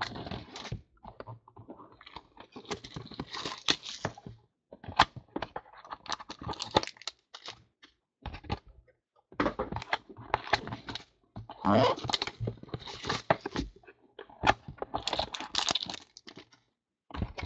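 Cardboard trading-card hobby boxes being handled and opened by hand, with the rustle and crinkle of foil-wrapped card packs and irregular taps and knocks on a tabletop.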